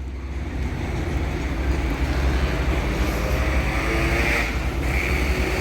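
Heavy diesel truck engine running steadily with a low rumble, slowly growing louder.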